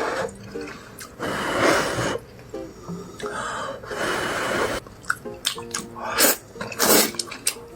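Background music with a faint stepping melody, overlaid by several bursts of hiss and sharp clicks.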